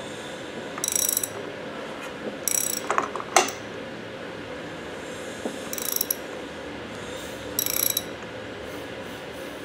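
Socket ratchet clicking in short runs every second or two on its back strokes, with a sharper clack about three and a half seconds in, as a Continental F245 flathead six is barred over by hand at the front pulley to find the compression stroke on number one.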